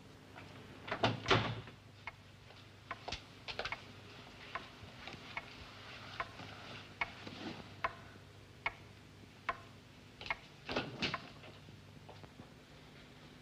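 Light footsteps clicking unevenly across a hard floor, about one or two a second, with louder knocks and rustling about a second in and again near the end, over a low steady hum.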